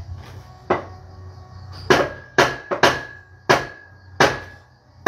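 Cleavers chopping roast pork on a table, about seven sharp chops at uneven intervals. The first two come about a second apart and the rest follow more quickly.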